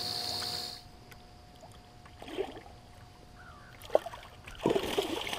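A steady hiss that cuts off abruptly about a second in, then a hooked northern pike splashing and thrashing at the surface in the shallows, with a few sharper splashes near the end.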